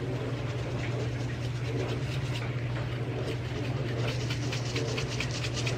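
Dried herbs being shaken from a plastic spice shaker jar onto potatoes on a sheet pan. From about four seconds in come rapid, even shakes, several a second. A steady low hum runs underneath.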